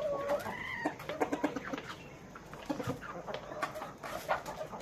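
Chickens in a flock clucking: a drawn-out call ends about a second in, followed by short, repeated clucks and clicks.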